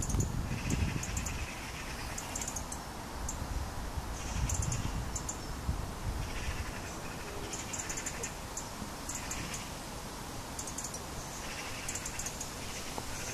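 Birds calling in short repeated bursts every second or two, over a steady low rumble outdoors.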